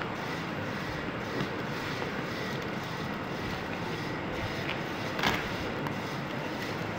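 Steady rushing noise, with a brief crackle of the vinyl wrap film being handled about five seconds in.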